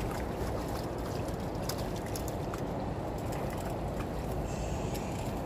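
Steady rush of flowing river water, with a few faint light clicks.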